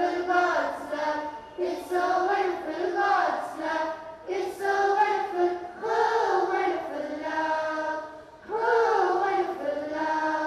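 A large group of schoolchildren singing together in unison, in long held phrases with short breaks between them.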